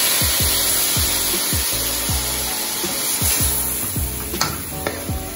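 Seasoned pig trotters frying in curry and butter in an aluminium pot, sizzling as a wooden spoon stirs and scrapes them. Background music with a bass beat plays under it.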